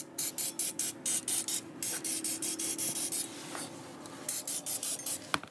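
Aerosol can of Fluid Film rust inhibitor spraying in quick short hissing bursts, about two or three a second with brief gaps between them.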